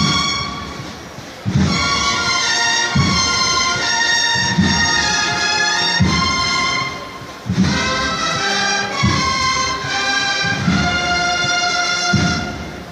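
Cornetas y tambores band playing a Holy Week processional march: bugles in sustained harmony over bass drum beats about every second and a half, with two short breaks between phrases.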